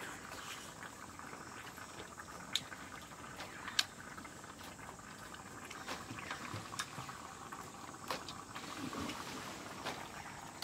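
Pestle working in a mortar, crushing wet ingredients: a soft squelching hiss with scattered sharp knocks, roughly one a second.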